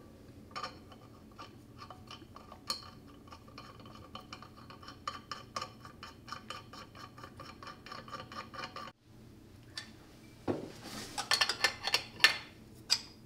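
Small metal parts ticking and clinking as nuts are run onto the threaded studs of an actuator case, quick faint ticks for most of the time. After a short break there are louder, sharper clinks of an open-ended wrench on the nuts near the end.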